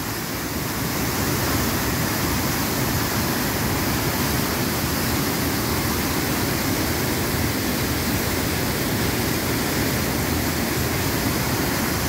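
Steady, heavy rush of a rain-swollen waterfall, a large volume of muddy floodwater pouring and crashing over rocks.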